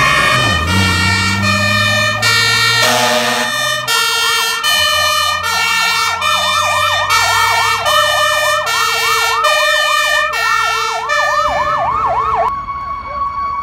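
Fire truck sirens: a two-tone horn alternating high and low notes about once a second, joined about four seconds in by a fast-warbling yelp siren, with a truck engine rumbling underneath at first. Near the end the horn and yelp stop and a single steady siren tone carries on.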